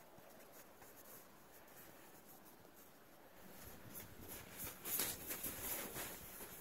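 A colt's hooves trotting through snow: faint crunching steps that grow louder and clearer from about four seconds in.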